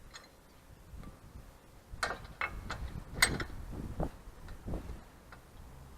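A run of sharp metallic clicks and knocks, some half a dozen in a couple of seconds, from a lug wrench and wheel nuts as the nuts on a car wheel are being tightened.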